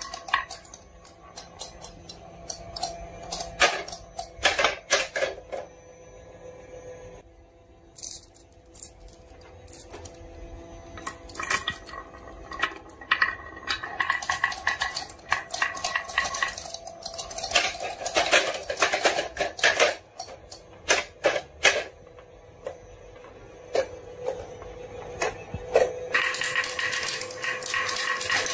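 Glass marbles rolling down a wavy wooden marble-run track, clicking against each other and against the wood in many sharp, irregular clicks. Near the end the clicks run together into a denser, continuous rattle.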